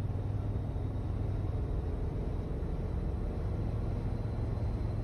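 Cab interior of a Dodge Ram Van B250 under way at speed: the 318 V8 runs with a steady low drone over continuous tyre and road rumble as the van accelerates toward 60 mph.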